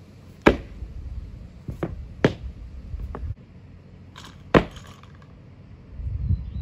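Sharp knocks and clanks from a barbell loaded with iron plates during clean-and-jerk lifting on rubber mats: the bar and plates striking and landing, and feet stamping at the catch. The loudest clanks come about half a second in and again at about four and a half seconds, with smaller knocks between.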